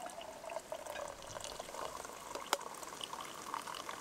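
Coffee pouring in a thin stream from a small metal coffee pot into a mug, a splashing trickle whose pitch rises as the mug fills. One sharp click about two and a half seconds in.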